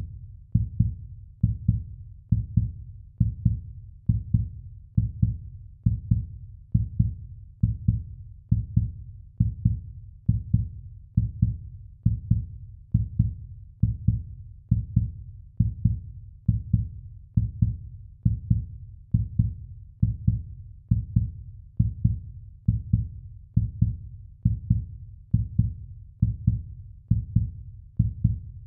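Heartbeat sound effect: low, muffled thuds beating steadily, a little over once a second.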